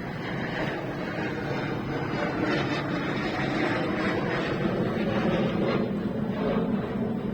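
Aircraft engine noise from an aircraft flying overhead: a steady rushing sound that grows louder about two seconds in.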